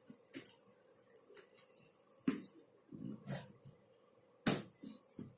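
Hands working at a sturdy cardboard shipping box to open it: scattered rustles and scrapes of cardboard, with a sharp knock about two seconds in and a louder one near the end.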